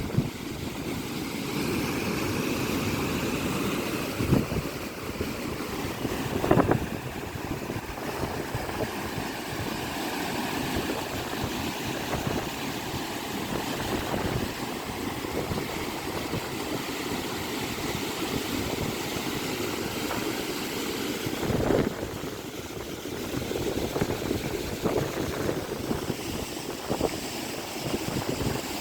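Wind and water, unfiltered: a steady low rumble with a few brief louder bumps.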